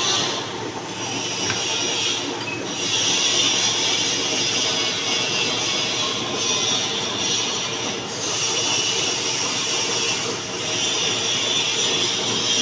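Manual metal lathe cutting into a metal workpiece: a continuous high squealing screech from the cutting tool over the running machine. The screech breaks off briefly four times.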